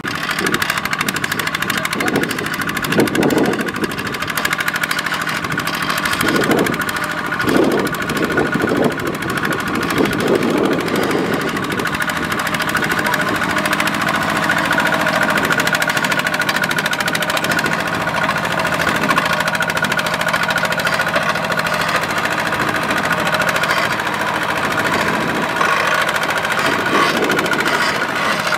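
Single-cylinder diesel engine of a two-wheel walking tractor running steadily under load, pulling a loaded rice trailer through deep mud.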